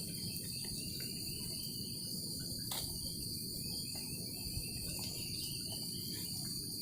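Night insects holding a steady, high-pitched chorus over a low, even hiss, with a few faint clicks and one sharper click a little under three seconds in.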